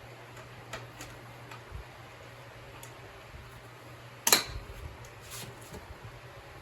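Hand tools and parts being handled during motorcycle disassembly: a few light clicks, then one sharp clink about four seconds in followed by a brief clatter. A low steady hum runs underneath.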